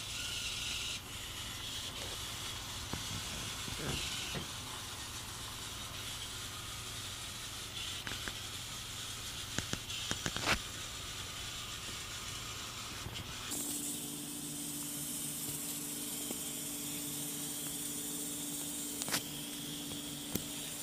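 Steady hiss of background room noise with a few faint clicks. About 13 seconds in the background changes abruptly and a steady low hum joins the hiss.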